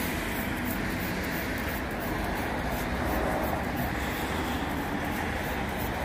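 Steady rumble of road traffic with no distinct events.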